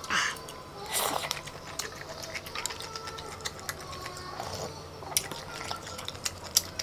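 Close-up eating sounds: spicy instant noodles slurped twice near the start, then wet chewing with sharp mouth clicks, and a sip of broth from a spoon about four seconds in.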